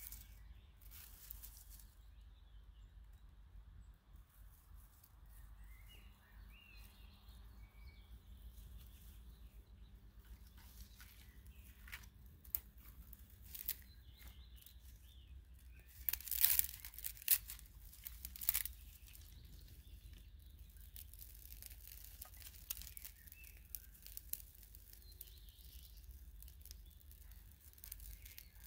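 Small fire of dry grass and thin twigs crackling and snapping as it catches. There are scattered cracks, then a cluster of louder ones a little past halfway. Birds chirp faintly underneath.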